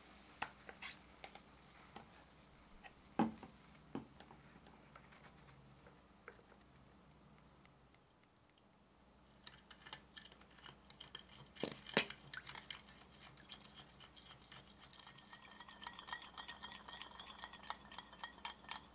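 Small metal wire whisk stirring liquid in a glass mixing bowl, its wires ticking and clinking rapidly against the glass, with a faint ringing near the end. A few separate clinks come in the first few seconds before the whisking starts.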